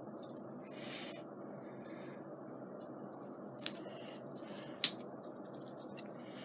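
Scissors snipping twice, sharp and short, about a second apart, with a brief soft rustle of handling about a second in.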